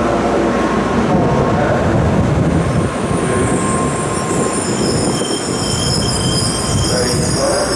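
A Tokaido Shinkansen train moving through the station: a loud, steady rush of running noise, joined about two and a half seconds in by several thin, high-pitched whining tones.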